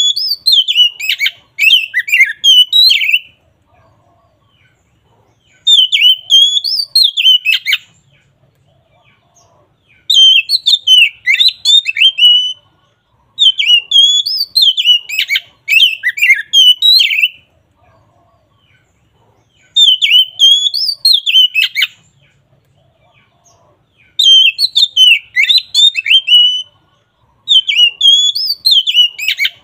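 Oriental magpie-robin (kacer) singing loud, full song: about seven bursts of two to three seconds each, made of clear whistled glides and quick rapid notes, with short pauses between them.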